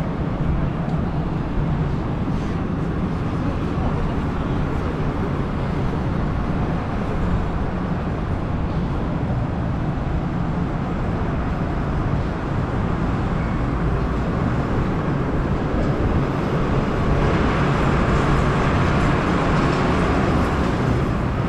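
Steady low rumble of outdoor city and harbour ambience, heaviest in the bass, with a brighter wash of noise building about three-quarters of the way in.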